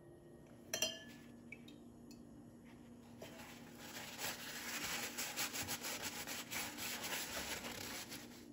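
Paper towel rubbing and rustling against a knife with a wooden handle as it is wiped after soaking, a dense scratchy rustle from about three seconds in until just before the end. A short sharp click about a second in.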